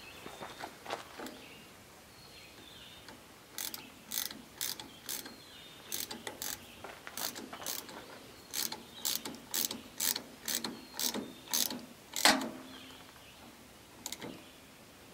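Hand wrench tightening the nut on a garden tractor's PTO pulley: a run of sharp metal clicks, about two a second, with one louder clack near the end.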